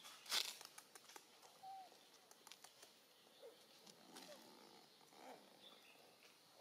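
Faint outdoor ambience: a brief sharp scuffle about half a second in, then a few faint short squeaky calls spread through the rest.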